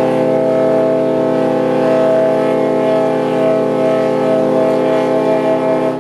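BC Ferries ship's horn sounding one long, steady blast that stops suddenly near the end.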